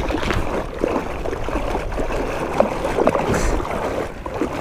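Legs kicking from a float tube, splashing and churning the surface of shallow, weed-choked water (elodea, coontail, milfoil) as the kicker pushes over the top of the weeds. It is a continuous run of splashes.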